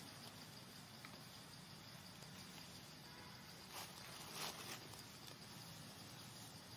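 Faint outdoor ambience with a thin, steady high insect drone, broken by two short rustles a little more than halfway through.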